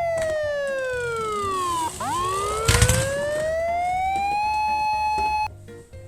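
Siren wail: a steady tone that sweeps down in pitch, swoops back up and holds, then cuts off suddenly near the end. A short loud burst of noise comes about three seconds in.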